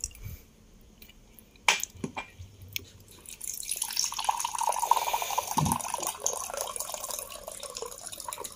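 Two sharp knocks about two seconds in. Then, about three and a half seconds in, water starts pouring steadily from the spigot of a plastic water dispenser into a drinking glass.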